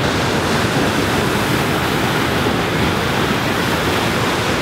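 Fast white-water cascade rushing over rock slabs: a steady, loud rush of running water.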